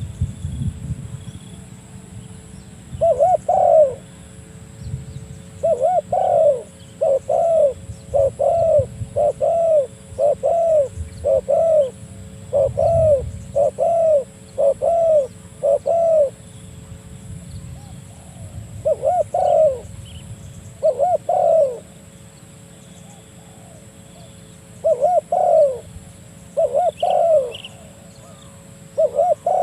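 Spotted dove (tekukur) cooing: short arched coos, first a pair, then a run of about ten in quick succession, then more pairs and short groups after pauses. This is the territorial call that draws a rival dove in, used as a lure in dove trapping.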